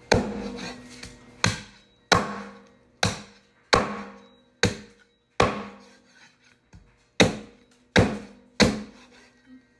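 Meat cleaver chopping raw turkey pieces on a wooden cutting board: about ten heavy, evenly spaced chops, one every second or less, each a sharp knock with a brief ringing tail.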